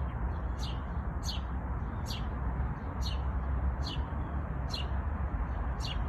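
A bird chirping over and over, a short high chirp that sweeps downward, about seven times at fairly even intervals of just under a second, over a steady low rumble.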